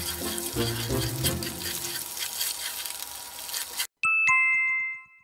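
Bacon and garlic sizzling in a frying pan as chopsticks stir them, under background music with a plodding bass line. Both cut off suddenly about four seconds in, followed by a two-note descending chime that rings out and fades.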